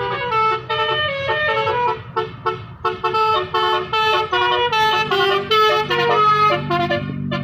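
Bus 'telolet basuri' musical horn playing a quick tune of short stepped notes, several pitches sounding together, over a low steady hum.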